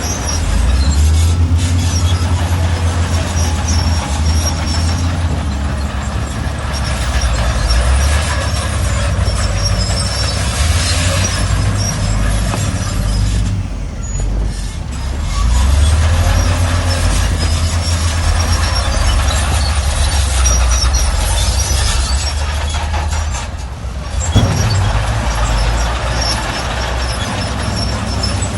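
Heavy diesel earthmoving machinery running under load, a deep engine rumble with clatter that eases off briefly twice. One sharp knock about three-quarters of the way through.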